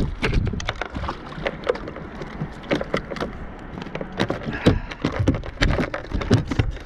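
A snoek thrashing as it is hauled up by the leader beside a Stealth Fusion 480 fishing kayak: many irregular knocks and slaps against the hull and splashes in the water, over a steady low noise.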